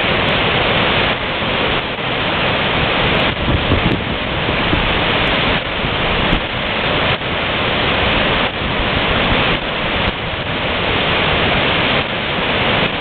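Big Falls waterfall: white water rushing over a broad rock ledge, a loud, steady wash of noise.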